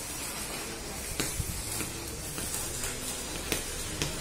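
Ground firework spraying sparks: a steady hiss with a few sharp crackles.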